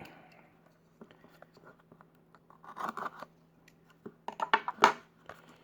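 Baseball cards and their packaging being handled: short scratchy rubbing and sliding sounds, a cluster a little before halfway and a louder run of scrapes near the end.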